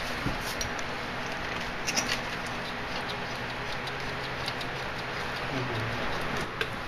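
Steady background hiss with a few faint, scattered clicks and light metal-on-metal handling from a front wheel hub and brake rotor.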